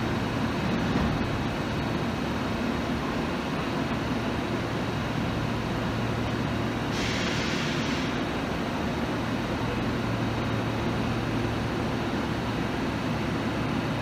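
London Underground S Stock train standing at the platform, its onboard equipment giving a steady hum, with a short hiss of air lasting about a second, about seven seconds in.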